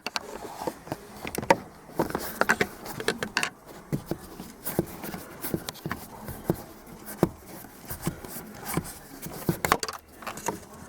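Scattered light clicks and scrapes of a screwdriver and hands working at a car's steering column, taking out the screw that holds the wiper switch.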